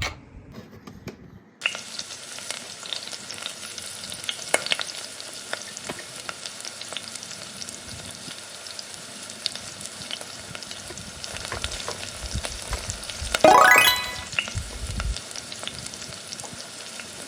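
Chicken leg pieces frying in oil in a miniature fry pan: a steady sizzle with scattered crackles starting about two seconds in. About three quarters of the way through comes a short rising whistle-like tone, the loudest sound.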